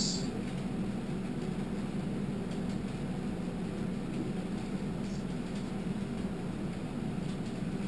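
Room tone: a steady low hum with hiss, with a few faint clicks about two and a half seconds in and again around five seconds.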